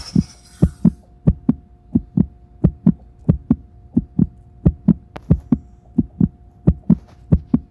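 Recorded heartbeat sound from an augmented-reality anatomy app: steady lub-dub double thumps, about ninety beats a minute, over a faint steady hum.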